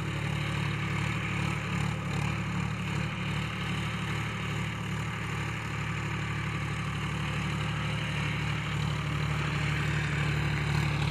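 John Deere 5050D tractor's three-cylinder diesel engine running steadily under load as it drags a laser land leveler across loose soil, growing a little louder near the end.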